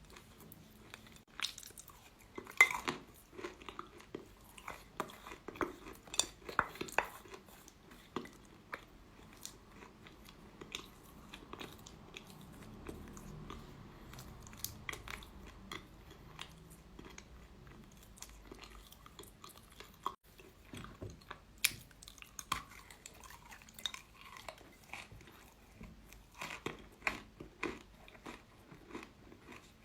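Chalk being bitten and chewed close to the microphone: sharp, crunchy snaps in irregular clusters, most frequent in the first few seconds and again in the last third, with softer chewing in between.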